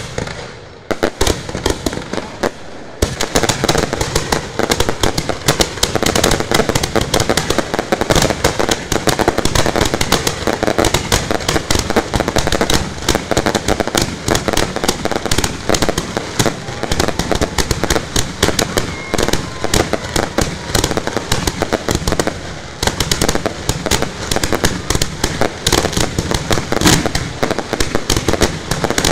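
Fireworks going off a few metres away: a dense, continuous crackle of rapid bangs and pops. It begins in earnest about three seconds in, after a short lull, and dips briefly once near the end.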